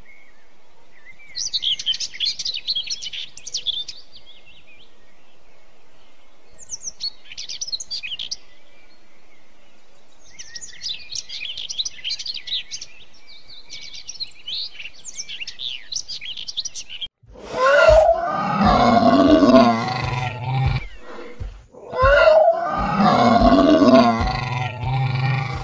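Birds chirping in several bursts, then, a little past halfway, loud dinosaur roar sound effects: two long roars that rise and fall in pitch, with a short break between them.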